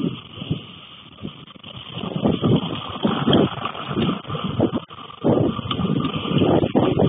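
Gusty wind buffeting the microphone, a rumbling noise that surges and drops in irregular gusts, the strongest from about two seconds in.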